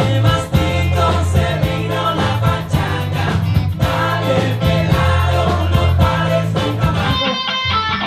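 Live rock band playing a song: electric guitar, bass guitar, keyboard and drums, with a man singing.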